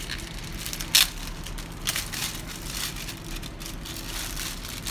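Handling noise: a sharp click about a second in, a smaller click near two seconds, then faint clicks and rustling over a steady low hiss.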